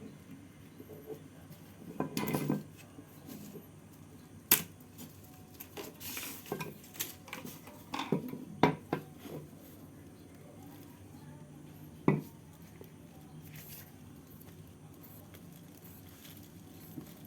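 Metal hand tools clinking and clattering against metal: a scatter of sharp knocks and a short rattle, with quiet stretches between.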